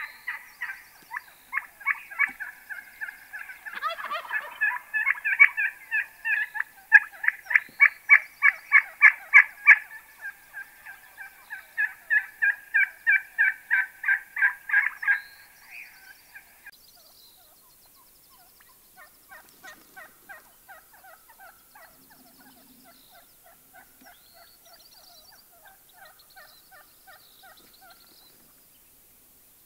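Gould's wild turkeys calling in long runs of rapid pulsed notes, loud for the first fifteen seconds, then breaking off and going on more faintly and sparsely.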